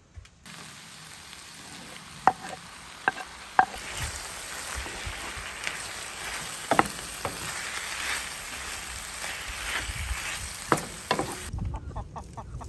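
Diced vegetables (zucchini, tomatoes, peppers, onion) sizzling in a frying pan while being stirred with a wooden spoon. Several sharp knocks of the spoon against the pan are the loudest sounds.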